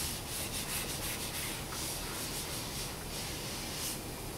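Whiteboard eraser rubbing across a whiteboard in quick, repeated back-and-forth strokes.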